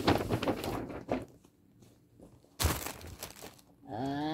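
Gift bag and its wrapping rustling and crinkling as a jacket is pulled out of it, with a single sharp crackle about two and a half seconds in.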